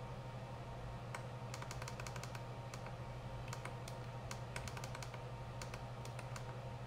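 Small plastic clicks of a FrSky Taranis X9D Plus transmitter's plus, minus and enter buttons, pressed in quick irregular runs to enter letters one by one, over a steady low hum.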